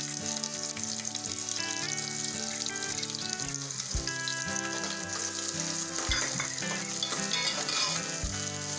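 Sliced onions and green chillies sizzling as they drop into hot ghee with whole spices and are stirred with a metal spatula; the sizzle starts suddenly as they go in and stays steady. Background music plays underneath.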